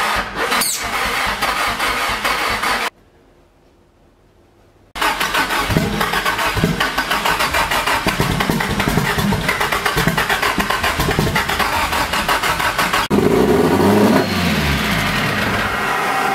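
Nissan SR20DET 2.0-litre turbocharged four-cylinder cranked on the starter and sputtering as it tries to fire. A first crank stops about three seconds in, and after a two-second pause a longer crank gives way, about thirteen seconds in, to the engine catching and revving up and down. It runs badly because the start map and ignition are not yet set right, on its first start after a year and a half standing.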